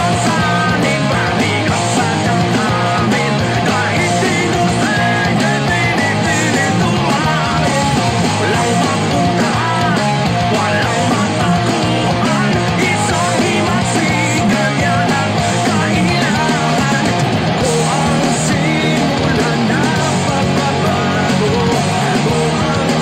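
Loud rock music: a band recording with electric guitars and drums, with an electric guitar played along to it.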